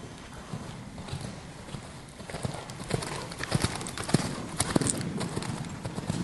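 Hoofbeats of a ridden Oldenburg horse trotting on the sand footing of an indoor arena, a steady run of dull thuds that grows louder about a third of the way in as the horse passes close.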